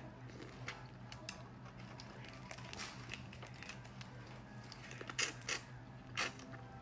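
Cooked clam shells clicking and clattering as they are pried apart by hand and picked from a plate, with a few sharper clicks about five and six seconds in, over a faint steady hum.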